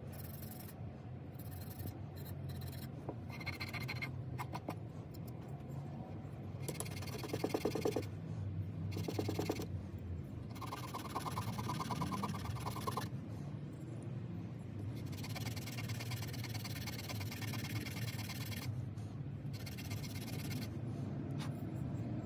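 Green abrasive scouring pad rubbed against the metal parts of an old blow torch, in spells of quick back-and-forth scrubbing strokes with short pauses between them. A steady low hum runs underneath.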